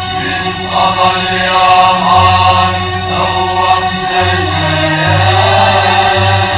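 Music: a choir chanting in sustained notes over an instrumental accompaniment with a bass line that moves in held notes.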